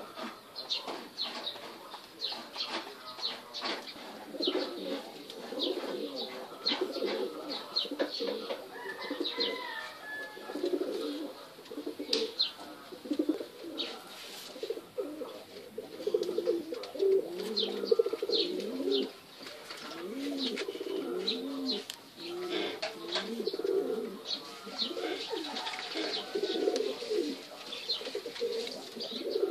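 Several domestic pigeons cooing, their low warbling coos overlapping throughout and growing busier in the second half, with many short sharp clicks scattered among them.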